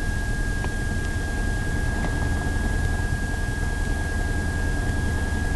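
Small-plane engine drone and hiss from a Piper Archer, picked up through the cockpit radio and intercom audio feed, with a steady high-pitched whine over it.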